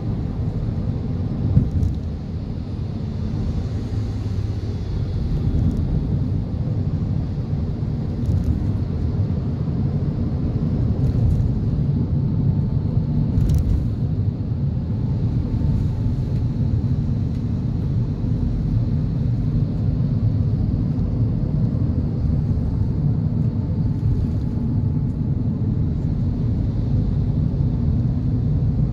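Cabin sound of a 2022 Toyota Avanza 1.3 with CVT driving in traffic: a steady low rumble of road, tyre and engine noise.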